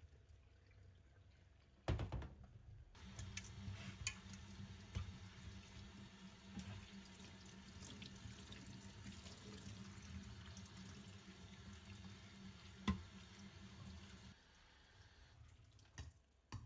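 A knock, then a tap running water into a sink for about eleven seconds, with a sharp clack shortly before the water stops.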